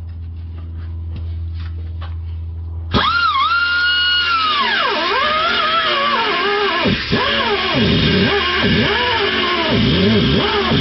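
A cutoff wheel starts suddenly about three seconds in with a high whine, then cuts into a seized O2 sensor on the exhaust. Its pitch dips and recovers again and again as the wheel bogs under load. Before it starts there is a steady low hum with a few light clicks.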